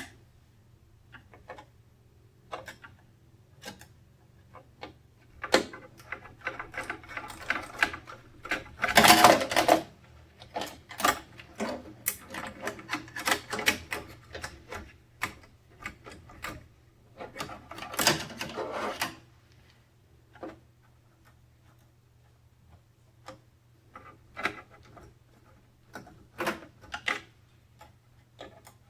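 Hands handling computer parts: scattered clicks, taps and short rustling bursts, loudest about nine seconds in and again around eighteen seconds, over a faint low hum.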